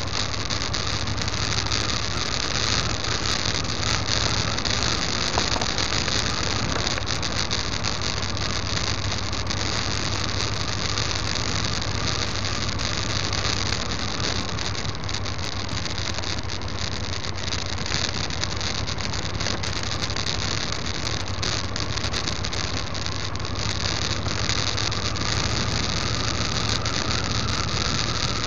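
Steady running noise of a vehicle driving on a gravel dirt road: tyre and wind noise over a low engine hum, with small rattles and ticks throughout.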